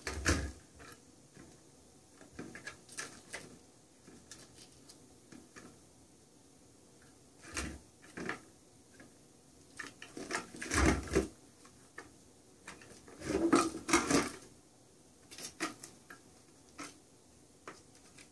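Cats batting at a round plastic cat toy and the toy mouse inside it, giving scattered plastic knocks and rattles, with a few louder clatters past the middle.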